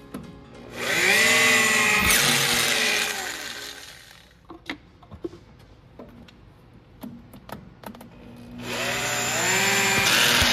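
Electric drill turning a carbide reamer through bronze valve guides in an aluminium cylinder head, pre-sizing the guides. It spins up, cuts for about three seconds and winds down, twice, with clicks and taps of tool handling in the pause between.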